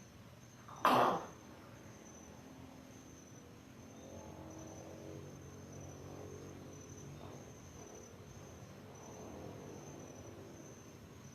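A single short cough about a second in, over the steady high-pitched pulsing chirr of crickets.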